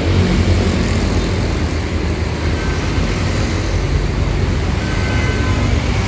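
A steady low mechanical drone with no clear rhythm or change.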